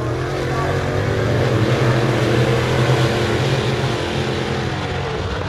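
Open-wheel modified dirt-track race cars' engines running at racing speed, swelling louder as a car passes close about two to three seconds in, then easing.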